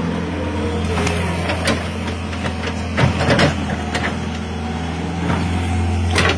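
Kobelco SK120-1 excavator's diesel engine running steadily as the machine works, with several sharp clanks from the swinging arm and bucket, the loudest cluster about three seconds in.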